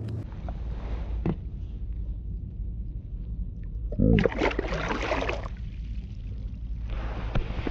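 Water splashing as a released largemouth bass kicks away from the side of a kayak, one loud burst about four seconds in, over a steady low rumble.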